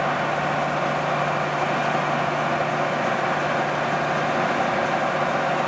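1973 American 19 x 64 heavy-duty engine lathe running under its 20 HP main motor, spindle and gearing turning with a steady, even hum.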